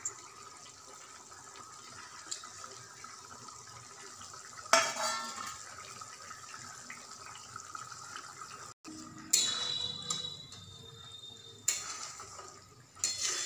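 Egg masala curry gravy boiling hard in a metal pan, a steady bubbling. A few short loud clanks of a metal spoon against the pan come about five, nine, twelve and thirteen seconds in.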